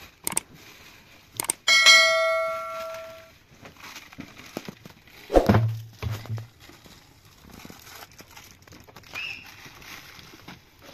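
A metal object struck once, ringing out with a bell-like tone that fades over about a second and a half, followed a few seconds later by a dull heavy thump. Light scraping and plastic-bag crinkling in between.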